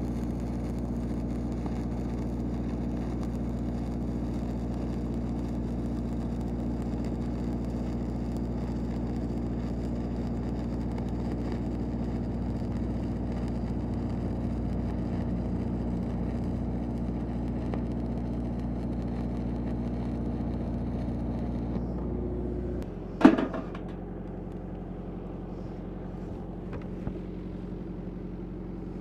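Stick (SMAW) arc welding on steel pipe: the arc's steady crackling hiss over the drone of an engine-driven welding machine. About 22 seconds in the arc stops, the engine note drops, and a single sharp clank follows.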